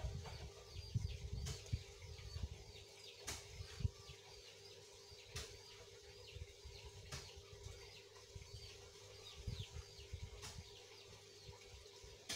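Small birds chirping in the background, many short high chirps that drop in pitch, with a sharp click every couple of seconds. Low rumbling fills the first few seconds.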